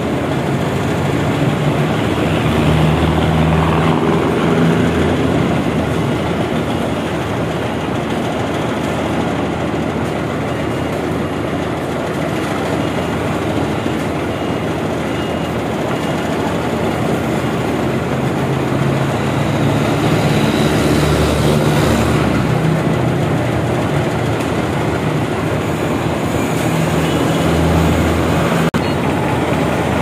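Concrete pump truck running under load as it pushes concrete through the delivery hose: a steady, loud mechanical noise with the engine note swelling a few times.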